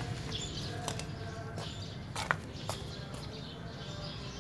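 Birds chirping over a steady outdoor background, with a few sharp clicks or knocks from handling, the loudest a little past two seconds in.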